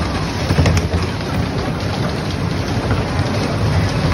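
Electric bumper car rolling across the rink floor: a steady rumble and hiss, with a few short knocks about half a second to a second in.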